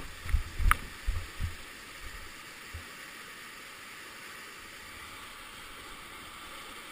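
Steady rush of whitewater pouring through a narrow river chute. In the first second and a half, a few low thumps and one sharp click sit over the water.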